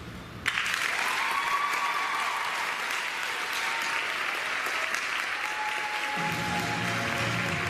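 Audience applause breaking out suddenly just after the routine's music ends, with a brief whoop in it early on. Music starts up again near the end.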